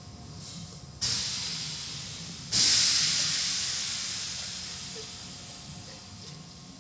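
Automatic car wash equipment letting out two sudden hisses, about a second in and again a second and a half later. Each fades slowly, and the second is louder.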